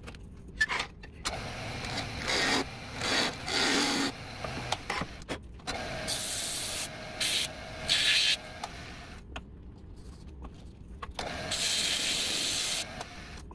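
Hand sanding a small turned cherry piece on a slowly spinning wood lathe: rubbing, hissing strokes of sandpaper on the wood in irregular bursts with short pauses between them.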